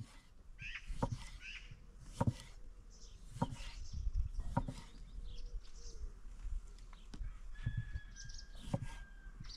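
Kitchen knife slicing through tomatoes and knocking on a thick wooden stump chopping board, a short knock about once a second. Birds chirp in the background.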